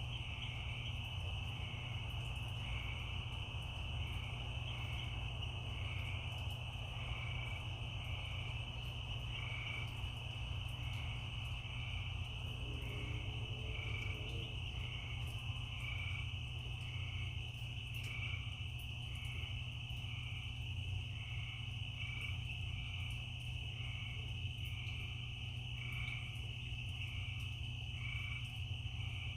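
Night chorus of crickets and frogs: a steady high trill, with a regular chirp repeating somewhat faster than once a second, over a low steady rumble.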